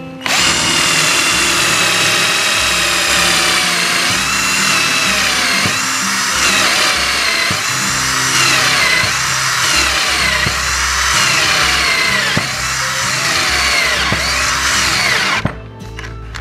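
Kapusi 12-volt cordless drill driver boring a 10 mm bit into thick mahogany in second gear. The motor's whine sags and recovers again and again under the load, then cuts off about fifteen seconds in as the drill stalls, short of torque in second gear.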